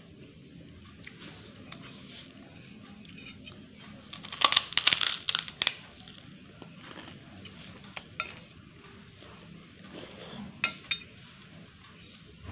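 A person eating rice with crunchy kerupuk crackers by hand from a glass plate. The loudest part is a cluster of crunching and clinking between about four and six seconds in, followed later by a few single sharp clicks.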